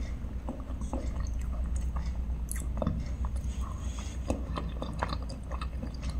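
A person chewing a mouthful of chicken curry and rice, with small wet mouth clicks and smacks close to the microphone, over a low steady hum.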